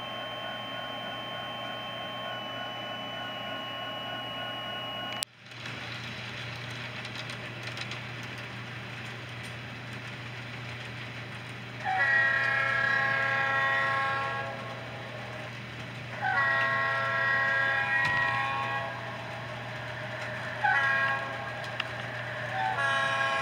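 Model diesel freight locomotive's sound system sounding its horn in the grade-crossing pattern: two long blasts, one short, then a long one starting near the end, over the steady running rumble of the train. For the first five seconds a steady drone of tones plays before an abrupt cut.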